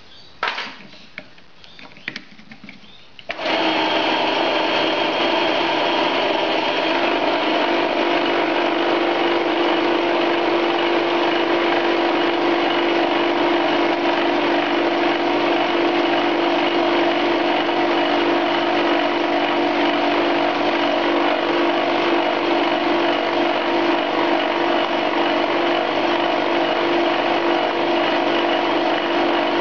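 A few sharp clicks, then about three seconds in the metal lathe starts up: a homemade two-tipped carbide fly cutter spinning in the spindle and milling hard steel on the vertical slide, a steady loud machining sound that holds to the end, taking a full one-millimetre pass.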